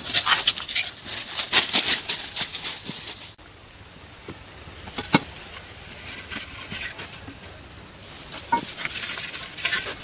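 Dense scraping and clicking of hand work with natural materials for about three seconds. After an abrupt cut it goes quieter, with one sharp knock about five seconds in and a few more clicks near the end.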